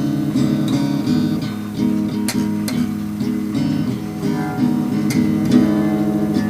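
A guitar being played: a continuous run of plucked chords and notes, with a few sharp picking attacks standing out.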